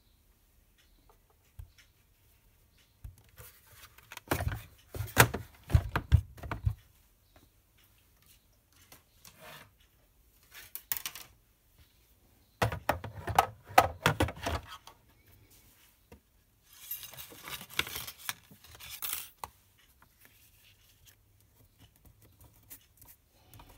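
A plastic die-cutting machine is handled on a wooden table: two bursts of knocks and clatter as it is set down and its fold-out platforms are opened, then a longer rustling scrape as cutting plates and paper are slid into place.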